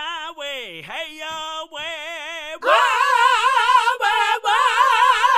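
A voice singing unaccompanied in long held notes with a wide, even vibrato, each phrase sliding down in pitch at its end. About halfway through it moves to a louder, higher held note.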